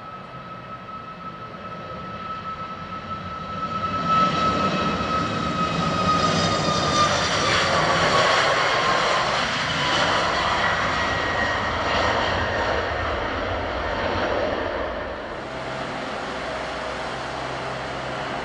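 Boeing 737 MAX 8 jet engines at takeoff power as the airliner rolls down a wet runway: the noise swells over the first four seconds, then the engine whine slides down in pitch as it passes. About fifteen seconds in it cuts abruptly to a steadier jet noise from another airliner, an Airbus A320, starting its takeoff.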